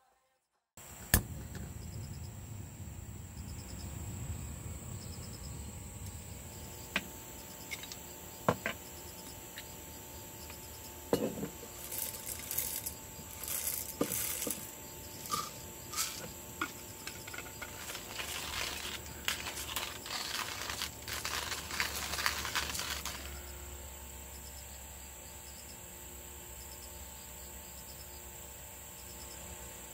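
A steady, high-pitched chorus of crickets and other insects, with scattered clicks and clatter of coffee gear being handled; from about 12 to 23 s there is a dense run of small rattles as coffee beans are tipped from a jar.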